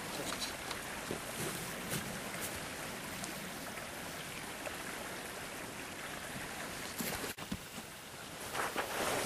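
Steady rushing of a stream's running water. The sound briefly drops out about seven seconds in, and a few sharp knocks come near the end.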